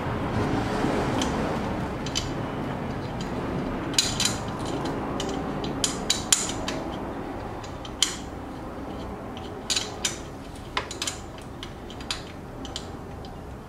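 Irregular sharp metallic clicks and clinks as aftermarket charge pipes and their clamps are worked into place by hand in an engine bay, over a steady background noise that slowly grows quieter.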